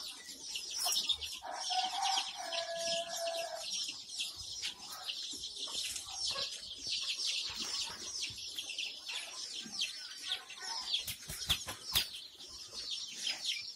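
A crowd of twenty-day-old Kadaknath and desi chicks peeping continuously, many short high downward-sliding peeps overlapping. A lower, longer call stands out about two seconds in.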